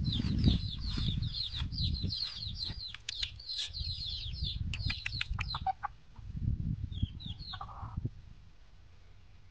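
Two hens fighting, with rapid high-pitched chirping calls and clucks over a low rumble. The chirping stops about six seconds in, and a few short calls follow near the end.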